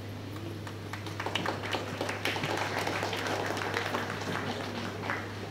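Audience applause: dense, irregular clapping that builds about a second in and thins out near the end, over a steady low hum.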